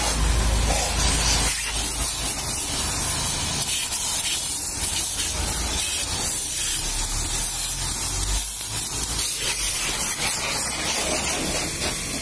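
Pressure washer jet spraying water against a car's front bumper, grille and number plate, a steady hiss of water striking the body. A low rumble sits under it for the first second and a half.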